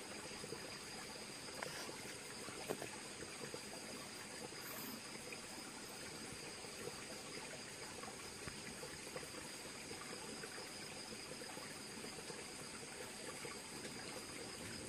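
Water trickling steadily over the rocks of a shallow stream, with a steady high insect buzz over it. A single sharp click about three seconds in.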